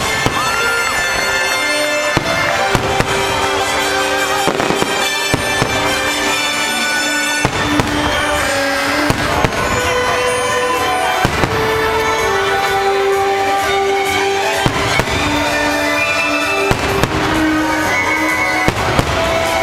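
Fireworks bursting and crackling again and again over loud show music with sustained notes.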